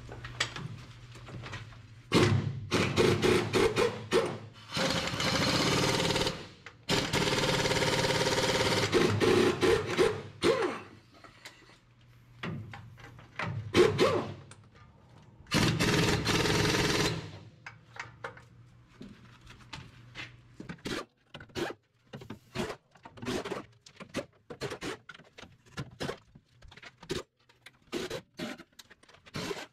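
Pneumatic impact wrench hammering on truck suspension bolster spring nuts through a socket, universal joint and extension, in four bursts of one to three seconds in the first half. Short metallic knocks and clinks of tools on the steel follow through the second half.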